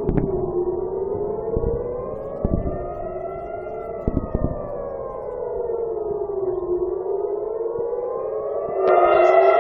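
Civil-defence air-raid siren wailing: several tones together rising and falling slowly, one full cycle about every six seconds, sounding an air-raid alert. A few dull low thumps come in the first half, and the siren grows louder near the end.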